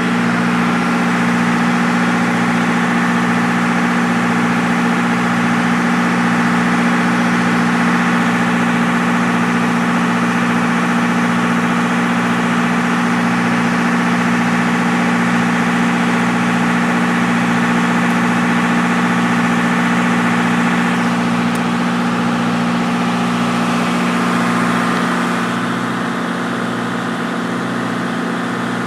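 Boat engine running steadily with a slow, even throb, a little quieter for the last few seconds.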